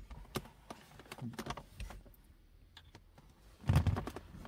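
Light clicks and taps of small gear-shifter parts and bushings being handled and pushed into place in a car's centre console, with one louder knock near the end.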